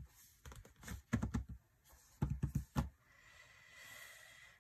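Stiff planner covers being handled on a tabletop: three quick clusters of light clicks and taps, then a soft sliding rustle near the end.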